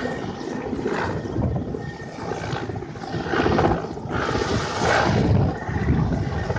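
Mi-8 helicopter's rotor and twin turbine engines running as it comes in to land, with wind buffeting the microphone in uneven gusts.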